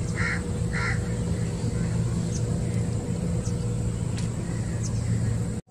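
Two short bird calls about half a second apart near the start, over a steady low rumble, with faint high chirps scattered throughout; the sound drops out just before the end.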